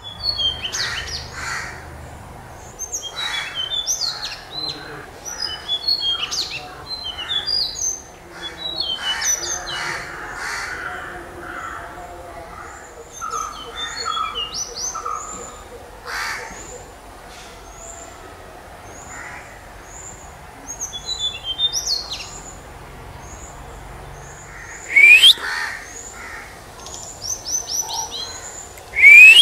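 Tickell's blue flycatcher singing: sweet phrases of quick high notes, busiest in the first half, then a run of short high chips. Two loud upward-sweeping whistles near the end are the loudest sounds.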